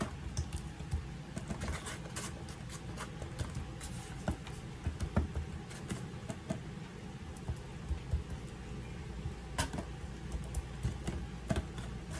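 Hands rubbing seasoning into raw racks of ribs in a disposable aluminium foil pan: soft, irregular patting and rubbing with small taps.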